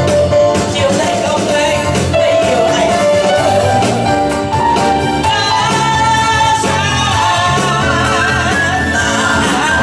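A woman singing a Vietnamese pop song into a microphone over instrumental accompaniment, amplified through a hall's PA speakers, with music playing steadily throughout.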